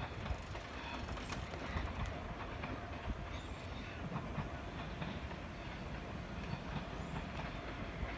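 KTT intercity through train rolling past at a distance: a steady rumble with wheels clicking over the rail joints.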